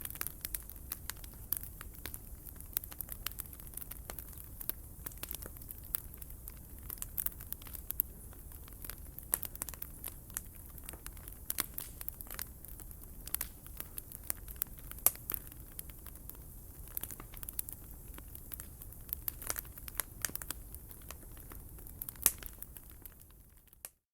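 Wood campfire crackling: irregular snaps and pops over a low steady rumble, cutting off abruptly near the end.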